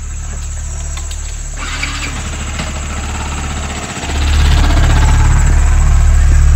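Motorcycle engine running steadily at idle, getting clearly louder about four seconds in as the bike pulls away, with a thin steady high-pitched tone over it.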